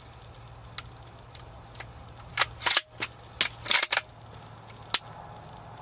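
A quick series of sharp clicks and knocks, about six in under three seconds, the loudest a little under halfway through, over a low steady hum.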